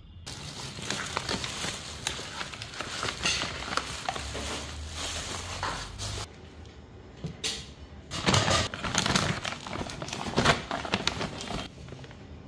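Thin plastic shopping bags rustling and crinkling as they are handled and opened, in bursts with a short pause about six seconds in.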